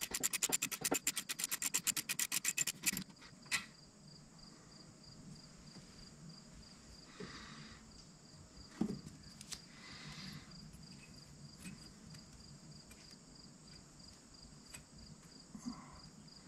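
Ratchet wrench with a 10 mm socket clicking rapidly, about eight clicks a second, as the bolt holding the rear wheel speed sensor is backed out. It stops after about three seconds, followed by faint handling of the loosened sensor and a light knock.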